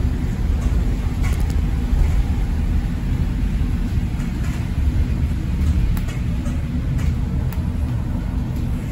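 Cabin noise of a moving ADL Enviro400EV battery-electric double-decker bus: a steady low road rumble with no engine note, and a few light clicks and rattles from the interior fittings.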